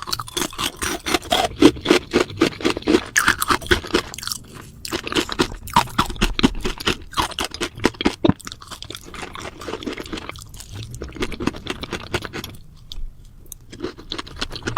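Close-miked crunchy eating: dense chewing and crunching with many sharp crackles in quick succession, easing off after about ten seconds.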